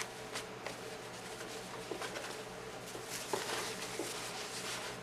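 Soft rustling of a cloth dog bandana and the items around it being handled and unfolded, with a few light taps.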